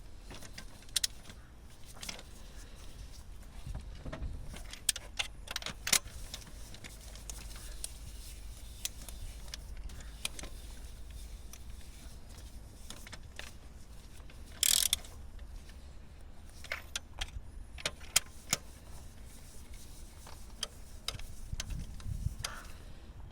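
Scattered metallic clinks and taps of hand tools and engine parts being handled, with a short scraping rasp about fifteen seconds in, over a low steady hum.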